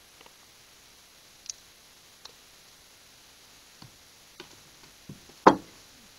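Scattered small clicks and taps of hands handling a plastic squeeze bottle and tools on a work table, with one louder knock about five and a half seconds in.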